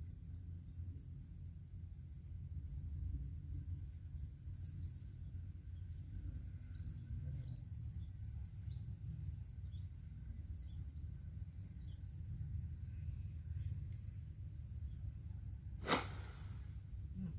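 Outdoor ambience of insects and crickets: a steady high thin drone with scattered short high chirps over a low steady rumble. A single sharp click near the end.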